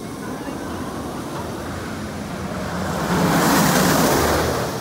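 Steel roller coaster train rushing past overhead on its track, a rumbling rush that grows loud about three seconds in and then fades.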